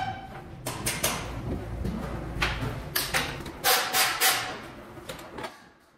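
Workshop clatter: irregular sharp knocks and rattles over a low steady hum. Both stop suddenly near the end.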